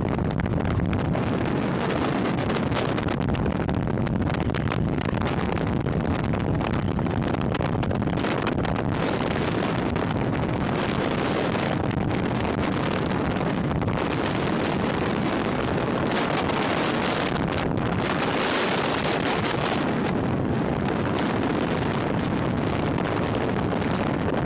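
Steady rush of wind and a moving vehicle's road and engine noise, with wind buffeting the microphone. The hiss grows brighter for a moment around eighteen seconds in.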